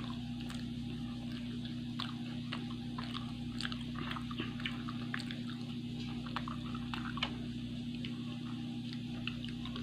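A person chewing and eating soft sosis solo rolls close to the microphone, with scattered small wet mouth clicks over a steady low hum.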